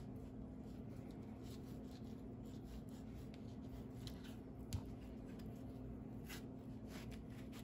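Kitchen knife cutting through a cantaloupe wedge, separating flesh from rind, in soft scratching strokes. About five seconds in there is one sharper tap, the knife meeting the plastic cutting board. A steady low hum runs underneath.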